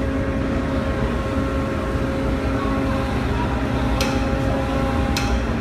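Steady low drone of heavy machinery with a constant hum running through it, and two sharp clicks, about four seconds and five seconds in.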